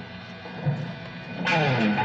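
Electric guitar playing a tone check: soft notes, then a louder chord about one and a half seconds in, its notes sliding in pitch.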